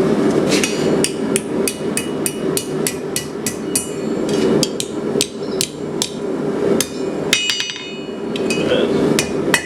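Blacksmith's hammer striking hot flat steel bar stock on an anvil, with the steel and anvil ringing. A quick run of even blows, about three or four a second, gives way after about four seconds to slower, scattered blows and a short flurry near the end.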